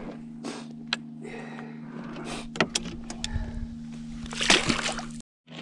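Handling noise from baiting a hook and handling a catfish in a boat: scattered clicks and knocks over a steady low hum, with a louder brief rustling rush about four and a half seconds in. The sound cuts out briefly near the end.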